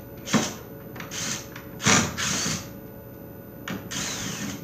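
Drill running in about four short bursts as it backs a screw out of a door hinge. Its bit slips on the screw head at first and is kept spinning until it catches.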